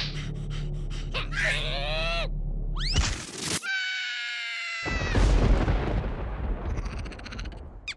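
Cartoon character's voice sliding down in pitch, then a high, held scream, followed by a loud low crash that rumbles and fades over the last few seconds.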